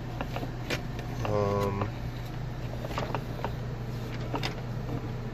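Plastic dashboard trim panel being handled and pressed back into place: a series of light clicks and knocks, over a steady low hum.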